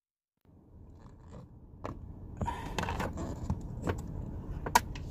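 Things being handled inside a car: rustling and scraping with scattered clicks and knocks, the sharpest a click just before the end. It starts after about half a second of silence.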